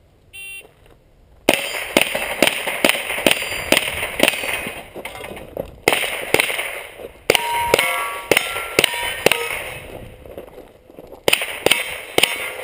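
A shot-timer beep about half a second in, then rapid strings of rifle shots, several with the clang of steel targets ringing after the hit. There are two brief lulls between the strings as the shooter moves between positions.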